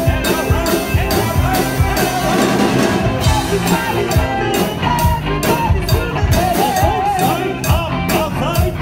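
Live rock band playing loudly: electric guitar and drums, with a cowbell struck along on a steady beat of about three strokes a second.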